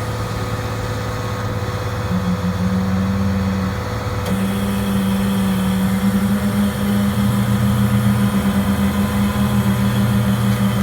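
Caterpillar AP655D asphalt paver's diesel engine running steadily. A low humming tone joins about two seconds in, breaks off briefly near four seconds, then holds, and the overall sound grows slightly louder.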